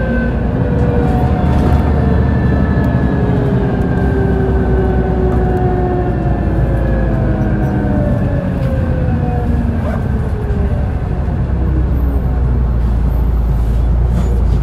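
Cummins ISMe inline-six diesel of a Trident Enviro 500 double-decker bus running: a steady low rumble with a whine that slowly falls in pitch over several seconds.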